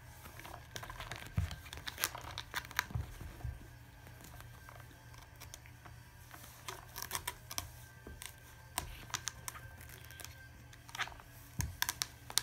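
A cat scratching and scuffling against a carpet-covered scratching post and carpet: irregular clusters of short, sharp scratches.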